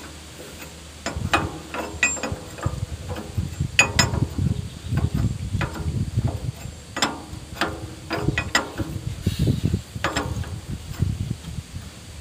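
Irregular metallic clicks and clanks of a cut-down 36 mm spanner working a hydraulic hose fitting on an excavator, loosening it to replace a broken O-ring.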